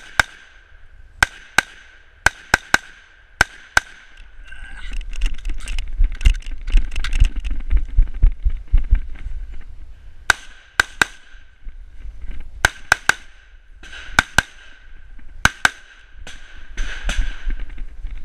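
Semi-automatic rifle fired in quick strings, some shots only a fraction of a second apart. Between the strings there is a stretch of loud rumbling, rustling noise.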